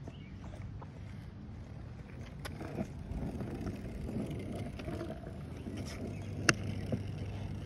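Skateboard wheels rolling on rough asphalt: a low, steady rumble that builds from about two and a half seconds in, with a couple of sharp clicks.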